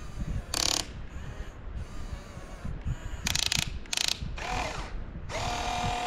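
Huina 1592 RC excavator's electric motors and gearboxes whirring in several short bursts as the arm digs and the boom lifts. A longer burst near the end carries a steady whine.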